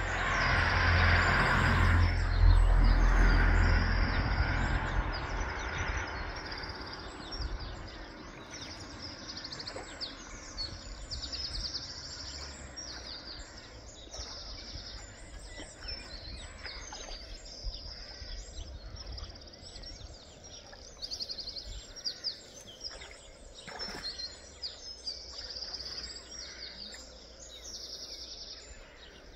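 Small songbirds chirping and singing over and over in the riverside background. A loud low rumbling noise covers them for the first few seconds, then fades.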